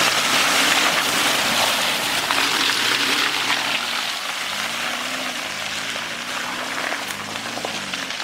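A 4x4's engine running under load as it climbs a muddy track, its revs rising and falling several times. Over it comes a steady hiss of tyres churning and slinging wet mud.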